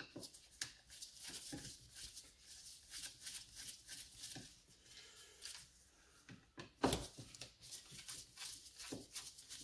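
Screwdriver prying and scraping at a Husqvarna 455 chainsaw's plastic chain-brake cover: a run of small clicks and scrapes, with one louder knock about seven seconds in.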